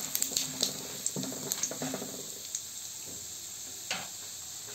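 Tempering frying in hot oil in a kadai (mustard seeds, urad dal and freshly added chana dal): a steady sizzle with scattered pops and crackles, one sharper crackle near the end.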